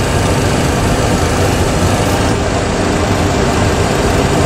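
Steady cockpit noise of a Boeing 737 Classic full-flight simulator in the climb: a loud, even rush of simulated engine and airflow noise.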